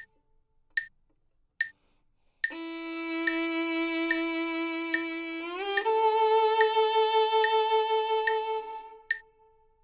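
Metronome clicking steadily, a little over once a second. About two and a half seconds in, a violin starts a long bowed note, slides smoothly up to a higher note about halfway through, holds it, and stops about a second before the end: a shifting exercise played against the click.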